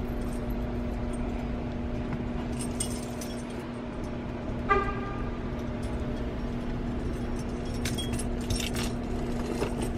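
A short car horn chirp about five seconds in, as a car is locked with its key fob, over a steady low hum. Keys jingle and click around it.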